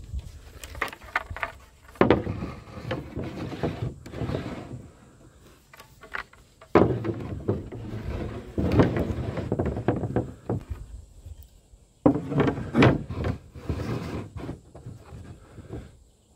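Thin oak flooring strips knocking and clattering against each other as they are handled and laid onto a stack, in four separate bouts of clatter with short pauses between.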